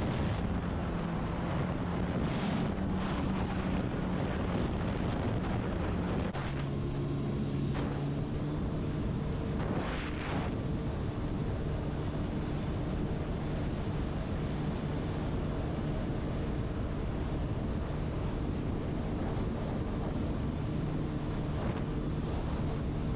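Supercharged four-cylinder engine of a Kawasaki Ultra 310 LX-S jet ski running steadily under way, with wind buffeting the microphone and water rushing past. The engine note drops a little about six seconds in and then holds.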